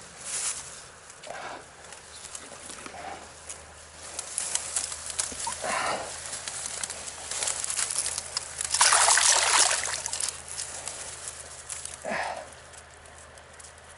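Hooked northern pike thrashing at the surface in shallow water: irregular splashes and sloshes, the biggest and longest about nine seconds in.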